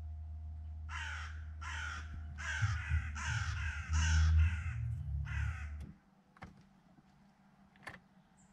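A crow cawing about seven times in a row, harsh and evenly spaced, over a steady low hum that stops about six seconds in.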